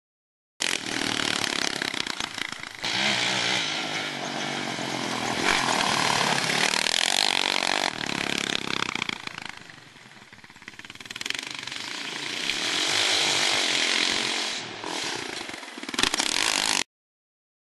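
Yamaha Raptor 660 quad's single-cylinder four-stroke engine revving hard, its pitch rising and falling as the throttle is worked, easing off to a quieter level about ten seconds in before building up again. The sound cuts off abruptly near the end.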